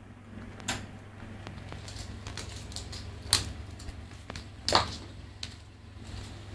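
Scattered light clicks and taps with three louder knocks, over a steady low hum.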